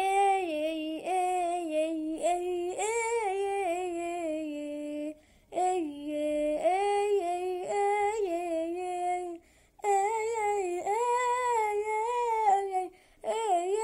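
A boy singing a Coptic hymn solo and unaccompanied, in long phrases whose pitch winds over several notes per syllable. The phrases are broken by short breaths about five, nine and a half and thirteen seconds in.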